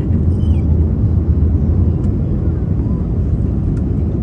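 Steady, loud low rumble inside the cabin of an Airbus A320 climbing out just after takeoff, with its jet engines and the rush of air along the fuselage.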